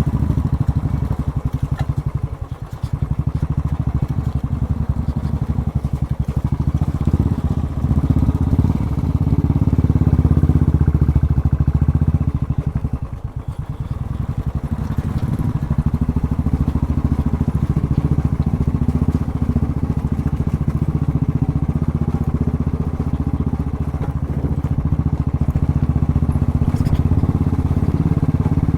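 Motorcycle engine running while riding, a steady low rumble with brief dips in loudness twice and a louder stretch in the middle as the throttle changes.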